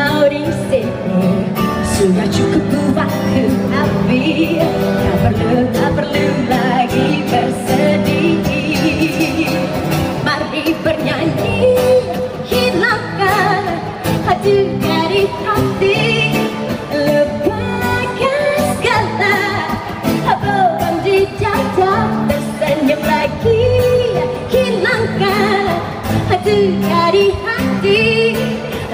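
A woman singing a pop song into a microphone with a live band of guitars and keyboard, played through a PA.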